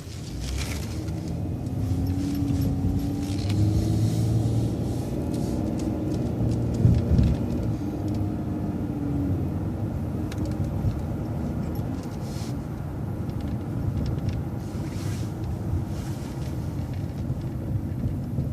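City transit bus running, heard from inside: a steady low rumble that grows louder just after the start, with an engine whine that climbs in pitch, holds, then fades out after about nine seconds. A single low thump about seven seconds in.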